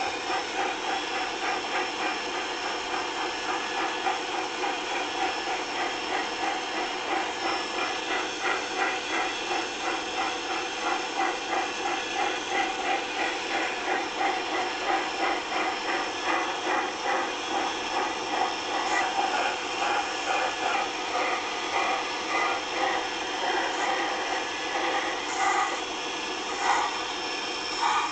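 Locomotive standing and running: a steady hum of several held tones with a rhythmic pulse of about two beats a second, and a few sharper clicks near the end.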